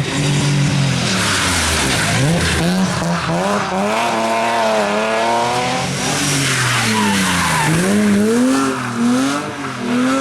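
Rally car driven flat out through a stage. The engine revs up and down repeatedly with the throttle and gear changes, and the tyres squeal and skid as it slides.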